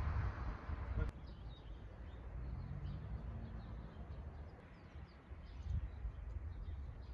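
Small birds chirping faintly and intermittently in the open air, over a low rumble of wind on the microphone. A hiss in the first second stops with a click about a second in.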